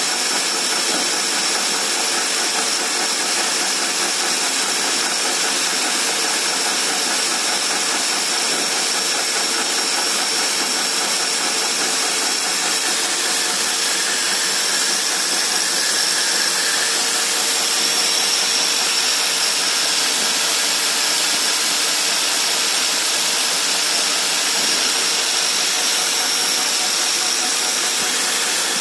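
Angle grinder running steadily against a workpiece turning in a lathe, grinding it down, with a high thin whine over a steady hiss.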